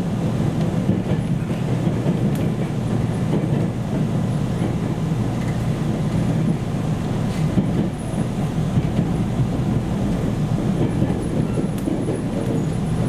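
Running noise heard inside a JR Central 313 series electric commuter train car: a steady low rumble of wheels on rail, with a few faint clicks.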